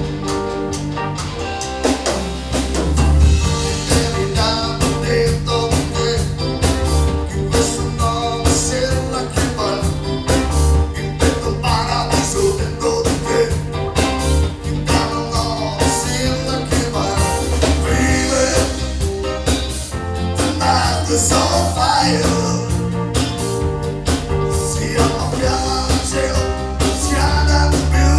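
Live band playing a song on drum kit, electric bass guitar, electric guitars and keyboards, with a voice singing over it. The bass and drums keep a steady beat.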